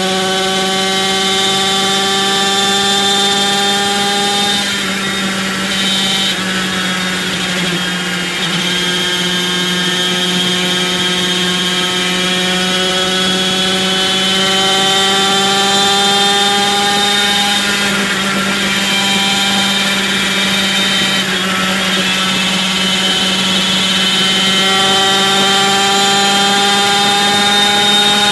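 Motor vehicle engines at motorway speed, heard from inside a car: a steady low drone under an engine note. The engine note climbs slowly in pitch, drops suddenly about four seconds in, and climbs and drops again twice more, the pattern of an engine accelerating through the gears.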